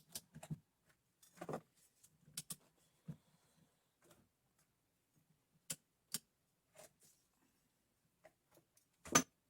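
Sparse light clicks and knocks of metal tools being handled, with one louder knock near the end.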